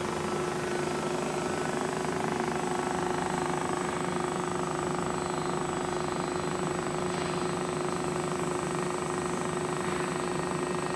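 Kent JHC-18S centerless grinder running steadily: a constant machine hum with a thin, steady high whine above it.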